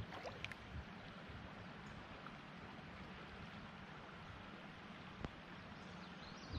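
Faint, steady rush of creek water, with a few light clicks and taps near the start and one about five seconds in.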